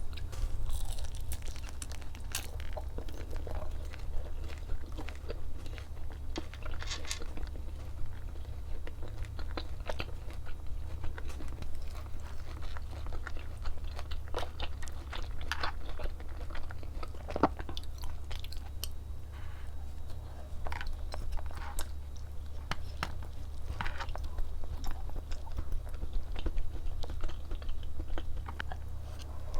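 Close-miked eating: a person bites and chews food with many irregular crunches and wet clicks, over a steady low hum.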